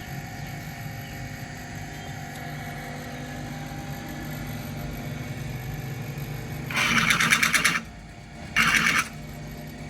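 A car engine idling steadily, interrupted near the end by two loud, harsh, rapidly pulsing bursts, the first about a second long and the second about half a second.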